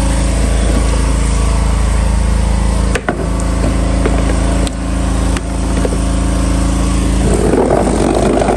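A motor runs with a steady low hum. Plastic chairs knock sharply a few times as they are handled, and a rougher scraping noise starts near the end.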